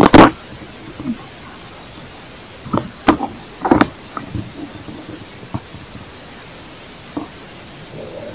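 Thumps and rustles of a hand digging tool working forest soil and leaf litter to dig out a termite mushroom. There is one loud knock at the start, three more about three to four seconds in, and a few fainter ones after that.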